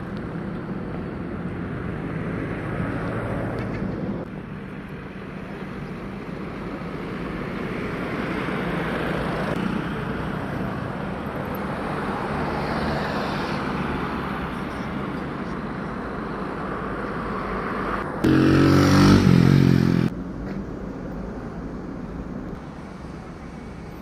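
Road traffic: cars and motorcycles running and passing, the noise swelling and fading. About three-quarters of the way through, a much louder steady-pitched sound lasts about two seconds and stops abruptly.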